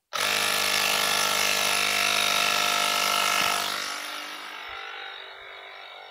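Portable electric tyre inflator's compressor switching on abruptly and running steadily while pumping up a bicycle's rear tyre. It grows fainter from about four seconds in.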